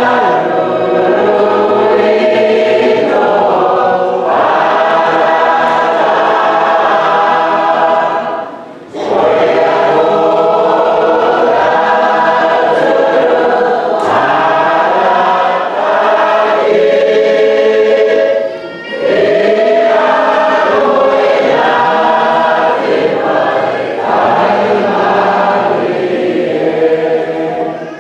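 Choir singing a hymn, in long phrases broken by short pauses about every ten seconds.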